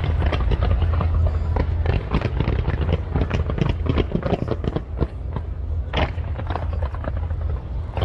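Fireworks going off in a dense barrage: rapid cracks and bangs over a steady low rumble, thinning out a little after about five seconds.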